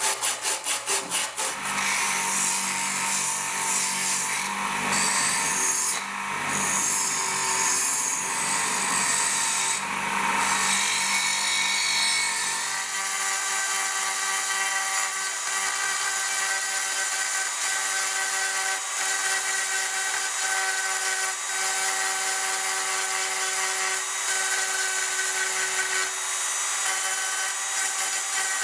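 Hand file strokes rasping on the rusty steel scabbard, then a rough grinding scrape over a steady hum. About twelve seconds in, this gives way to the steady whine of a small pen-style rotary tool running with a fine bit against the pitted steel.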